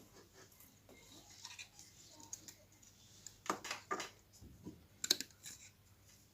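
Faint, scattered clicks and taps of wires and small driver parts being handled on a workbench, a few brief ones with the clearest about three and a half and five seconds in.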